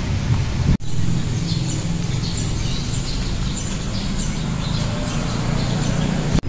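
Outdoor ambience: a steady low rumble with small birds chirping over it. The sound cuts out for an instant twice, about a second in and near the end.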